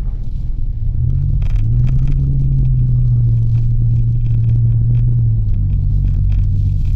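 Mitsubishi Delica's engine running as it is driven: a steady low hum that rises a little about a second and a half in, holds, and eases back near the end.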